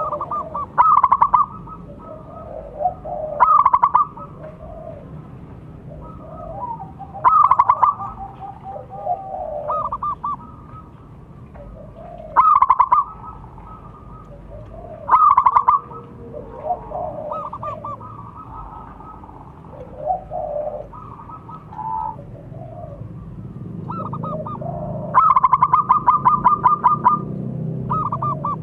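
Zebra dove cooing: loud short bursts of rapid staccato notes repeated every few seconds, with softer, lower notes between them and a longer run of pulsed notes near the end.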